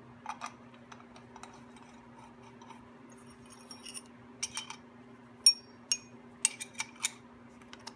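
Sharp metallic clinks and taps of a small steel wrench and bolts against a bolted aluminum block and a steel vise, a few scattered ones at first, the loudest a little past halfway, then several in quick succession near the end. A steady low hum runs underneath.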